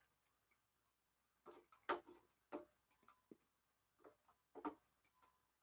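A few faint, irregular clicks and taps, about eight of them spread unevenly over a few seconds, the loudest about two seconds in and near the end.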